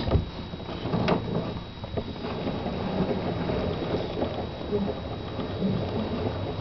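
Handling noise of hands working on a boat's rotary steering helm and cable: rubbing and scraping, with a sharp knock right at the start and another about a second in, plus a few lighter clicks.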